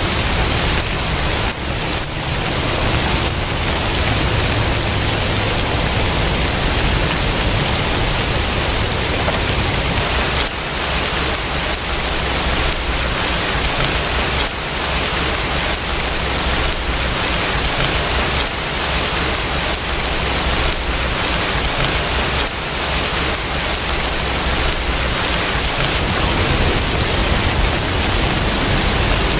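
Steady rain falling, a dense even hiss, with a low rumble underneath that swells and eases.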